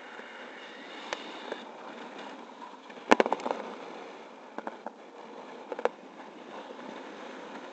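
Steady rush of air past a paraglider in flight, with scattered sharp clicks and crackles, a quick cluster of the loudest about three seconds in and a few more a couple of seconds later.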